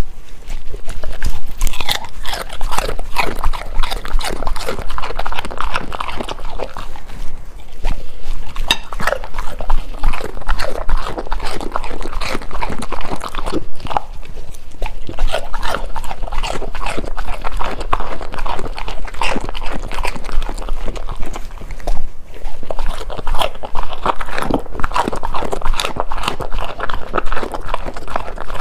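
A golden retriever chewing and crunching food, cucumber among it, in a loud, close, continuous run of crisp crunches, with a couple of brief lulls between mouthfuls.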